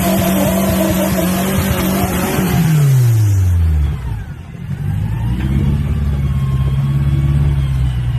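Off-road vehicle's engine held at high revs with a steady hiss over it; about two and a half seconds in the revs fall away and the hiss fades, then the revs climb back and hold steady.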